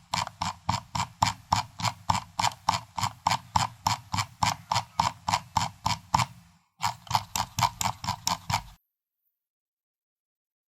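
Computer mouse scroll wheel being turned notch by notch: a steady run of clicks about five a second, a brief break, a second shorter run, then it stops about two seconds before the end.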